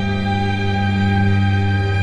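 Drone doom music: a dense, sustained wall of held tones over a deep, held low note, with no beat or attack.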